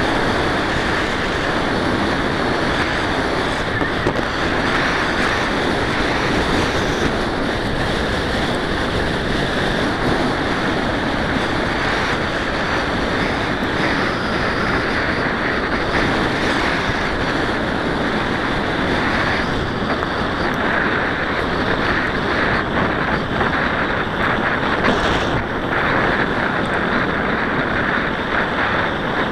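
Steady rushing of wind on the microphone mixed with a mountain bike's tyres rolling over a dirt and gravel track, with some short clatters from bumps about two-thirds of the way in.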